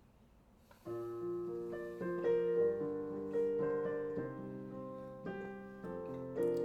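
Piano playing a slow introduction of held chords, coming in about a second in after a brief near silence.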